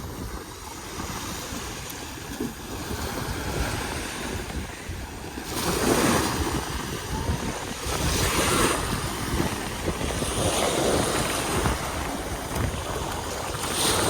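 Ocean surf washing in, with wind buffeting the microphone; the wash swells louder several times.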